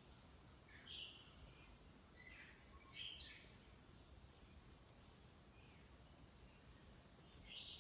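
Near silence, with a few faint, brief bird chirps about a second in, around three seconds in and near the end.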